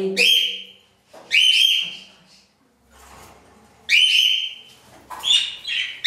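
Cockatiel calling: about five loud, shrill, whistled contact calls of half a second or so each, with short gaps between.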